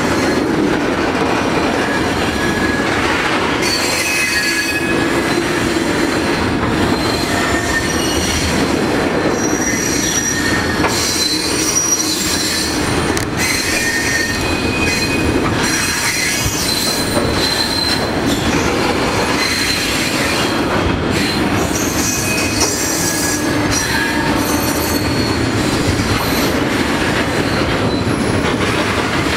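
A freight train of tank wagons rolling past close by: a steady loud rumble and clatter of steel wheels on the rails, with short high-pitched wheel squeals breaking in again and again as the wagons take the curve.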